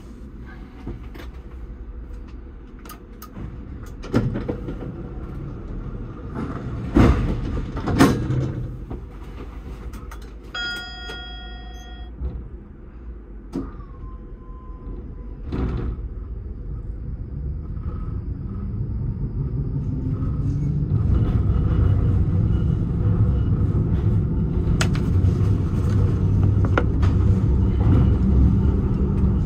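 Tram standing at a stop from the driver's cab, with a few knocks and a brief electronic chime about 11 seconds in. From about 17 seconds the electric traction drive whines up and the running rumble grows louder as the tram pulls away and accelerates along the track.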